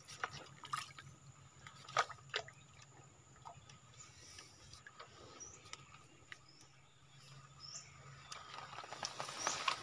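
Quiet waterside ambience with a few faint scattered clicks and several short, high bird chirps; near the end a faint water trickle starts to rise.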